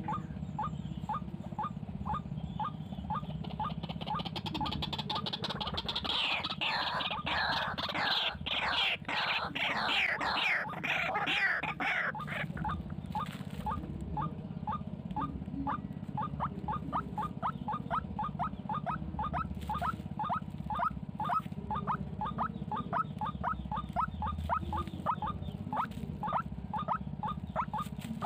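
White-breasted waterhens calling: a long run of short repeated notes, about three a second, with a louder burst of rapid, overlapping chattering calls between about four and twelve seconds in.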